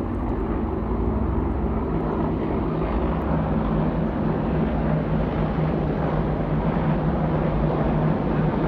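Two military helicopters flying over: a steady low rotor drone that grows slightly louder.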